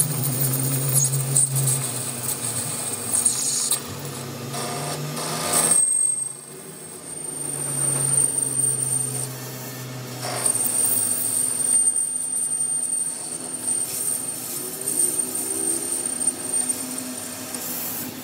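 Metal lathe turning a steel shaft: the motor and spinning chuck hum under the scraping of the cutting tool on the steel. A thin high-pitched whine comes and goes, and the sound drops briefly about six seconds in.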